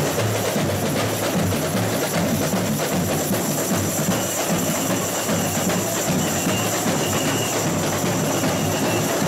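Samba school bateria playing a continuous samba groove: surdo bass drums under smaller snare-type drums and metal shakers, dense and steady.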